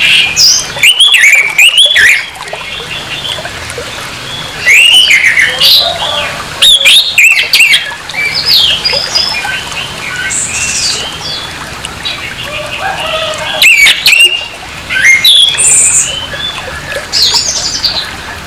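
Orange-headed thrush (anis merah) giving its harsh, rough song: bursts of rapid chirps and sharp whistled sweeps with quieter phrases in between. This is the agitated, worked-up singing that keepers play to provoke other birds of the species into singing.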